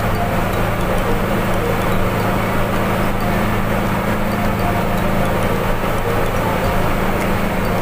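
Steady engine hum and road noise of a city bus driving along at an even speed, heard from inside the cabin.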